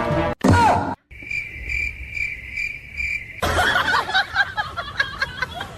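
Cricket chirping: a steady high trill that pulses about twice a second, five times, then stops abruptly. It is followed by a busy jumble of short chirps and squeaks.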